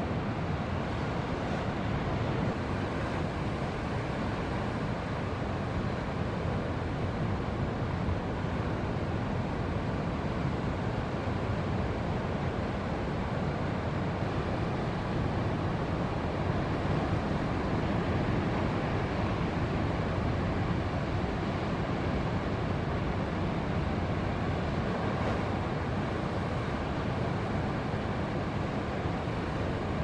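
Steady, even noise of breaking ocean surf and wind on the microphone, with no distinct events.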